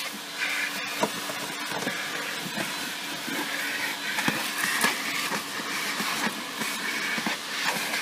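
Car-wash vacuum running steadily with a faint low hum, its nozzle drawn over a car's floor mat, grit clicking and rattling as it is sucked up the hose.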